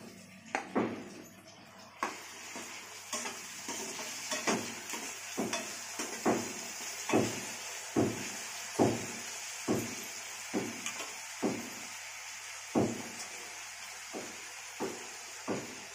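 A metal slotted spoon stirs onions and tomatoes in a kadhai, scraping and knocking against the pan about once a second. Under it runs a steady frying sizzle that sets in about two seconds in.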